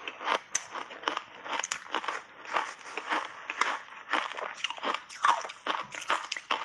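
Crunchy shaved ice coated in matcha powder and milk cream being chewed with the mouth close to the microphone: a steady run of crisp, sharp crunches, about three a second.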